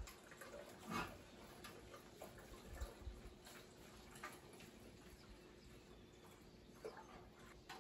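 Near silence: quiet kitchen room tone with a few faint light clicks, the clearest about a second in.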